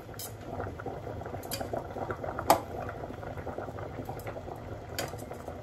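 Pot of water boiling on the stove, bubbling steadily, with scattered light clicks and one sharper knock about halfway through.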